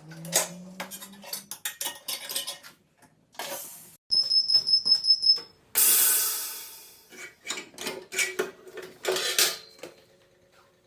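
Metal tools clinking and clattering as they are handled, with a quick run of high chirps a little past four seconds in and a loud burst of hissing about six seconds in that fades away.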